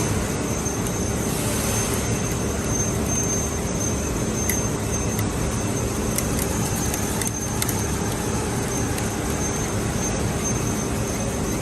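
A 3D printing filament extrusion line running: a steady machine drone with a constant thin high whine over it, and a few faint ticks.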